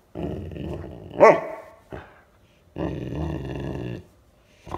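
Six-month-old Landseer Newfoundland puppy "talking": a low grumbling growl, a short high yip about a second in, then a second low grumble near the end.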